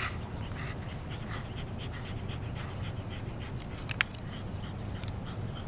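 A dog panting in quick, even breaths, about three a second, over a steady low rumble. Two sharp clicks about four seconds in.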